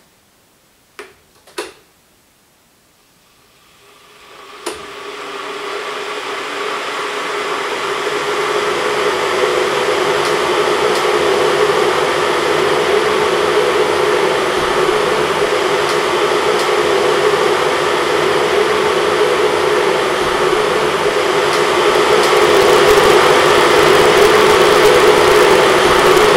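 Three electric kettles are switched on with a few sharp clicks, then heat their water. A rushing noise with a low hum builds up over several seconds into a steady, loud boil.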